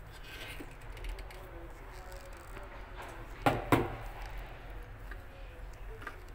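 Two sharp knocks in quick succession about three and a half seconds in, over a low steady hum.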